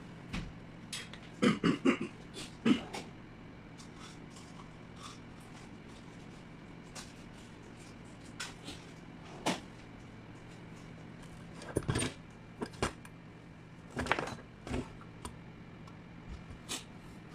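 Scattered clicks and knocks of hands handling parts and tools at a workbench, in short clusters with gaps between, over a faint steady hum.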